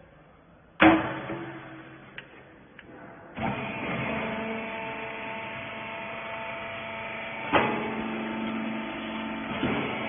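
Metal lid of a small vertical hydraulic cotton-rag baler slammed shut with a loud clang about a second in, followed by a couple of light clicks. The baler's electric hydraulic pump motor then starts and runs with a steady hum, and a single sharp knock sounds midway through the run.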